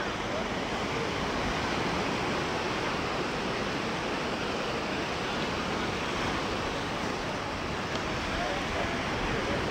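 Sea surf washing onto a beach: a steady rush of wave noise with no distinct breaks or strikes.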